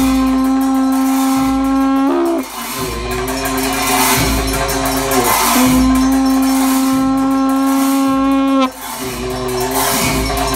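Tibetan long horn (dungchen) blowing long held notes, each about three seconds, bending up in pitch as each breath ends, over cymbal clashes and slow low drum beats of Tibetan monastic ritual music.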